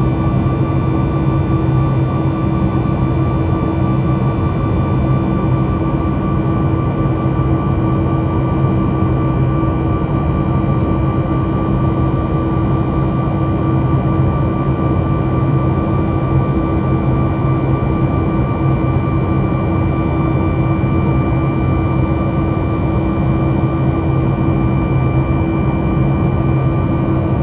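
Boeing 737 MAX 9's CFM LEAP-1B turbofan engines running, heard inside the cabin: a steady drone over a low rumble, with several steady whining tones on top.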